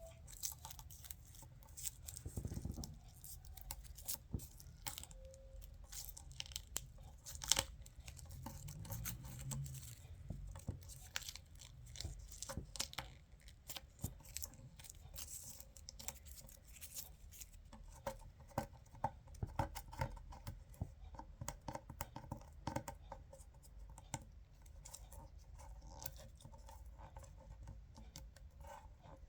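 A dense, irregular run of small crackles and clicks, with a few louder snaps.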